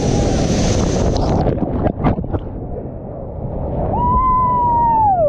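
Whitewater of the Green River Narrows rushing around a kayak in a steep rapid at high flow, with a few sharp splashes about two seconds in. Near the end a high held tone rises over the water and slides down in pitch.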